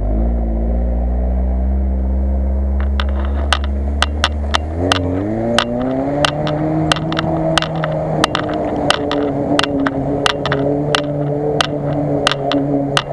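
Lada Niva's four-cylinder engine running close by with a steady low drone. About five seconds in, a second motor's whine rises in pitch and then holds steady, with sharp irregular clicks and knocks over it.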